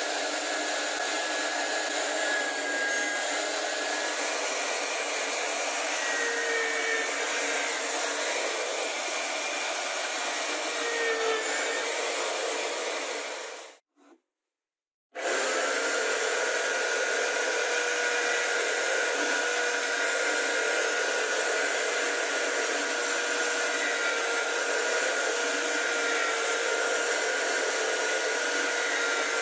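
Homemade drill press running steadily with a motor whine while drilling holes through plywood. The sound cuts out for about a second near the middle, then the motor resumes with a steady whine.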